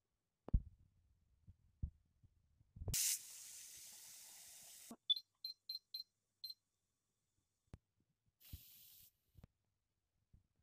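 A few light knocks, then a hiss lasting about two seconds, followed by five quick high beeps from an induction hob's touch controls. A second short hiss comes near the end.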